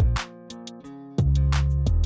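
Background music with a heavy bass line and a programmed beat: a bass hit near the start drops away, then the bass and beat come back loud a little past halfway.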